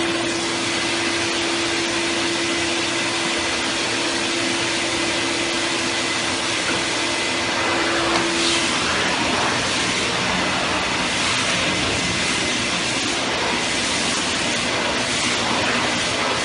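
A 30-litre wet-and-dry vacuum cleaner running loudly and steadily. A steady hum in its sound drops out about halfway through, and the rush of air shifts slightly after that.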